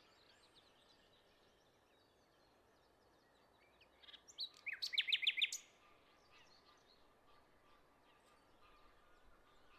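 Songbird singing one quick phrase of about half a dozen sharp, fast notes about four to five seconds in, with faint scattered bird chirps in the background.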